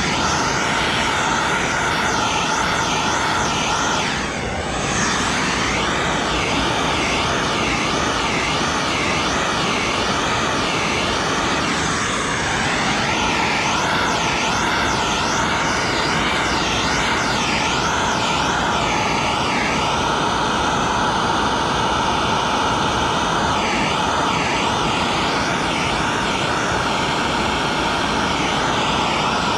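Plumbing torch flame burning steadily with a continuous roaring hiss while it heats a brass fitting for soldering, the tone wavering slightly as the flame is moved over the fitting.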